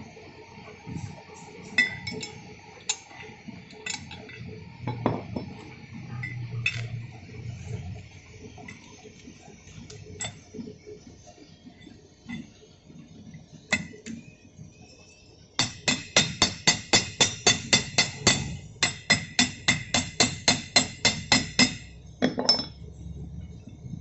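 Steel parts of a backhoe planetary gear set clinking and knocking as they are handled and fitted together. About two-thirds of the way in come two quick runs of sharp metal-on-metal strikes, about four a second, each lasting around three seconds.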